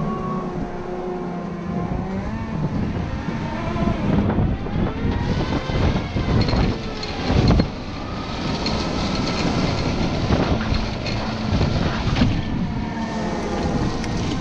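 Caterpillar 926M wheel loader's diesel engine working hard as its snow plow pushes heavy wet snow, the engine note rising and falling with the throttle over a constant grinding noise. A heavy knock comes about halfway through.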